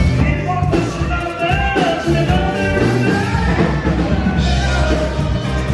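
Rock music with a singing voice over a steady bass line, cutting in suddenly at the start.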